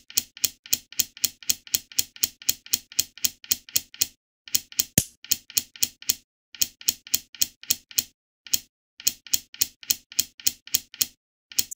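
Lishogi's shogi-piece move sound effect, a sharp wooden clack, repeating about four times a second as the moves of the game go by in quick succession, with a few brief pauses.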